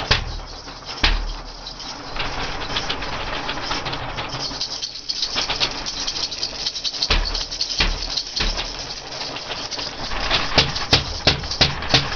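Lo-fi harsh noise music: a dense, crackling wash of noise with no steady pitch, full of irregular clicks and a few low thumps, the clicks coming thicker near the end.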